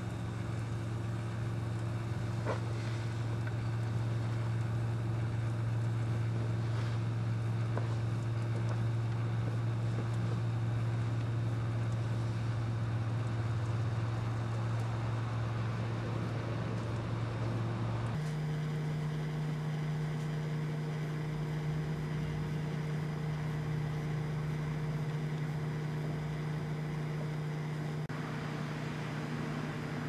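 Microwave oven running: a steady low electrical hum with fan noise. A little past halfway the hum cuts abruptly to a higher pitch.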